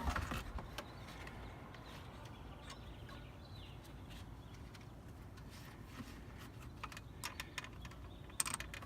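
Faint scattered clicks and taps of a plastic dashboard trim panel being handled and fitted around the headlight switch wiring, with a few more clicks near the end.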